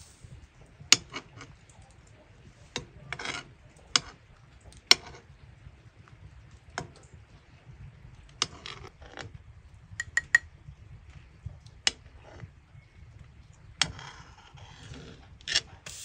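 Cooking utensils and dishes handled during food preparation: scattered sharp clinks and knocks, a few short ringing clinks about ten seconds in, and several brief scraping sounds.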